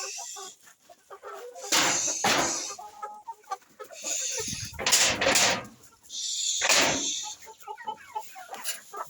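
A flock of chickens clucking with many short calls, broken three times by louder rushing bursts of noise, each lasting about a second.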